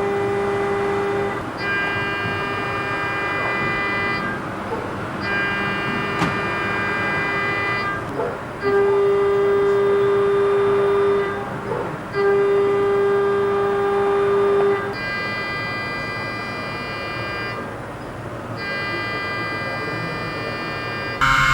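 CNC milling machine cutting with a ball-nose end mill: a steady whine near 400 Hz with ringing overtones over a hiss of cutting noise, the tone changing and jumping in loudness every few seconds as the tool moves through the cut, with a single sharp click about six seconds in.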